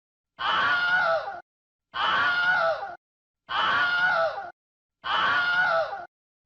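The same short, high-pitched human scream, played as a sound effect and repeated four times. Each scream lasts about a second and is separated by dead silence.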